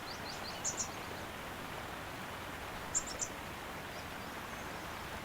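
Short, high bird chirps, a quick cluster about a second in and another about three seconds in, over a steady soft outdoor hiss.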